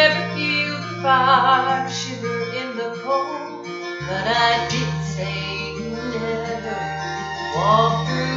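A woman singing a slow gospel song with vibrato over a guitar and bass accompaniment.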